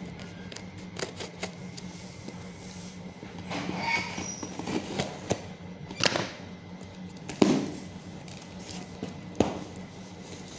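Cardboard parcel and its packing being handled and opened by hand: scattered clicks, crinkles and scrapes, with a few sharp knocks, the loudest about seven and a half seconds in.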